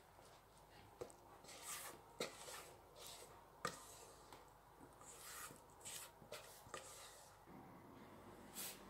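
Faint scraping swishes and a few light taps and clicks as a silicone spatula scrapes cake batter into a metal baking tray.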